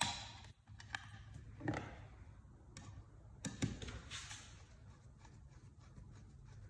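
A few light, scattered knocks and taps of wooden trap parts being handled, with a short scraping rustle about four seconds in.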